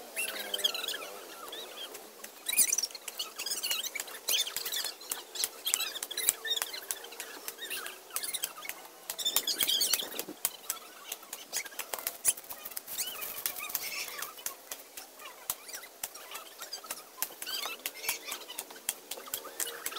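A hoe chopping and scraping through weedy soil and dry grass: many irregular sharp strikes with rustling of the cut grass.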